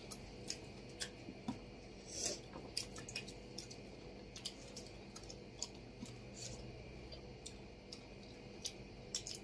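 Faint, scattered mouth clicks and smacks of people chewing chicken and rice eaten by hand, with a slightly louder soft rustle about two seconds in.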